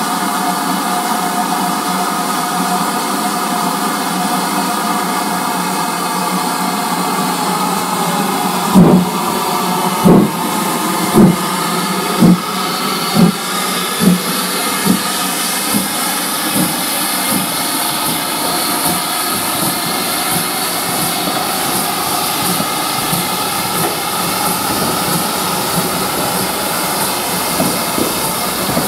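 GWR Manor class 4-6-0 steam locomotive 7802 hissing steam steadily, then pulling away about nine seconds in. Heavy exhaust chuffs come about one a second, quicken, and grow fainter as it draws off.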